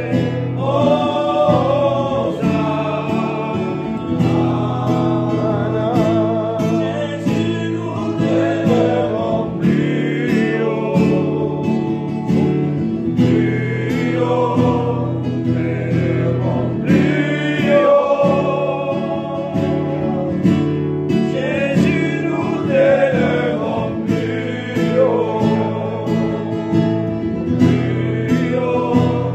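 A man singing a hymn while playing an acoustic guitar, his voice carrying a melody with long held, wavering notes over the guitar chords.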